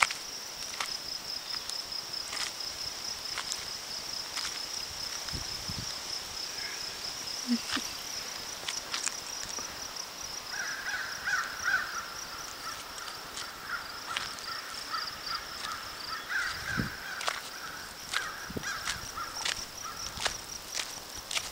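Rural outdoor sound: a steady, high-pitched insect trill throughout, with scattered footsteps, and a bird calling repeatedly from about halfway through for some ten seconds.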